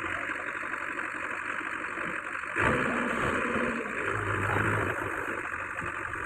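Diesel engine of a JCB 3DX backhoe loader running steadily, with a sudden louder burst about two and a half seconds in.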